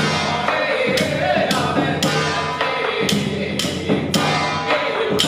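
Music with a steady beat of sharp percussion strikes about twice a second under a wavering melody line.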